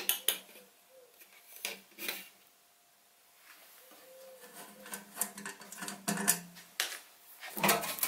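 Metal clicks and knocks as the sheet-metal change-gear cover on a Sieg SC4 bench lathe is handled and swung open. The knocks come irregularly, with a louder cluster near the end.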